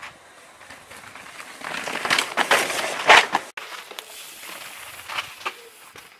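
Tyres of a 2018 Trek Slash mountain bike crunching and rattling over a loose, rocky dirt trail as the rider passes close by. The noise builds from about two seconds in, is loudest near three seconds, and drops away abruptly; fainter scattered crackles of tyres on gravel follow.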